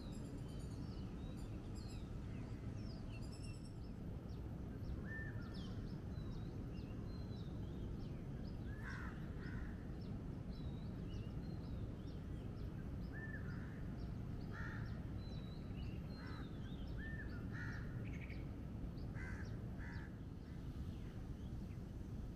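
Dawn bird chorus: many small birds chirping throughout, with a louder bird giving short calls, often in pairs, from about five seconds in, over a steady low background rumble.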